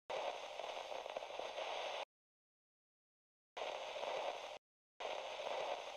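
Television static hiss in three bursts that start and cut off abruptly: about two seconds, then about one second, then about one second, with dead silence between them.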